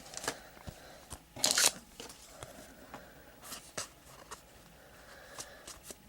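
Faint handling of trading cards and pack wrappers: a few small clicks and taps, with one brief rustle about one and a half seconds in.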